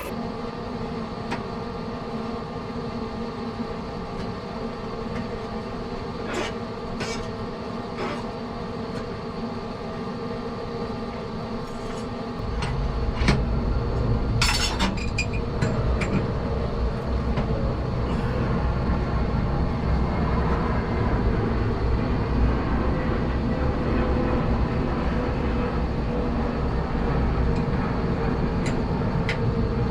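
Steady drone of shop machinery in a blacksmith's shop, joined about twelve seconds in by a louder low rumble that keeps on. A few sharp metallic clinks, the loudest a little after the rumble starts.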